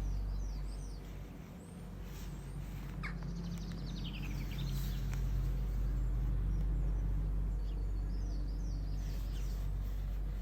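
Birds chirping in short repeated phrases over a steady low background hum.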